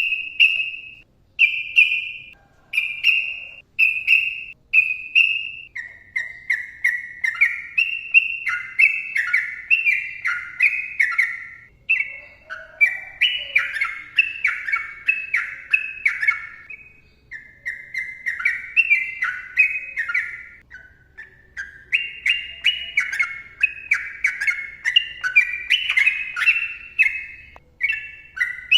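Sooty-headed bulbul singing: a few clear single notes about once a second, then from about six seconds in a long, fast run of chattering, falling phrases.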